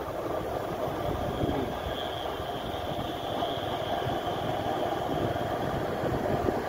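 A vehicle driving along a road: a steady rumble of engine and road noise, with a faint high whine that swells in the middle.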